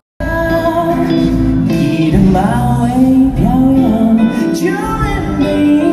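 Live concert music: a singer backed by a band with strings and keyboards, the voice gliding over sustained chords. It is picked up from the audience on a phone.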